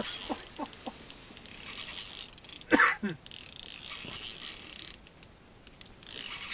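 Spinning reel being cranked, its gears clicking and whirring as a hooked fish is reeled up through the ice. A brief louder sound comes about three seconds in.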